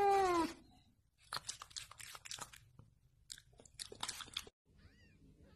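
Domestic cat's meow, falling in pitch as it ends about half a second in. It is followed by two runs of soft crunching clicks over the next few seconds, and a faint short high chirp near the end.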